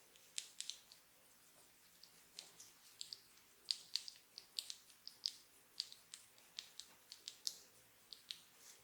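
Hands working over a head during a massage: faint, crisp, irregular clicks and crackles of fingers scratching and rubbing through hair and scalp, about three or four a second.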